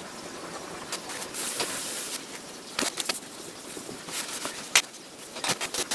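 Scattered clicks and light taps of small parts and tools being handled on a work surface, over a steady hiss, with a brief brushing or scraping sound about a second and a half in.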